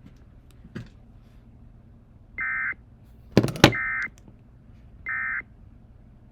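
Emergency Alert System end-of-message signal: three short warbling data bursts (the SAME "NNNN" code), each about a third of a second and a little over a second apart, closing a tornado warning. A loud knock comes just before the second burst.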